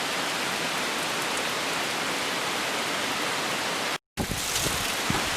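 Steady rain falling, an even hiss. About four seconds in it cuts off abruptly, and gusts of wind buffet the microphone.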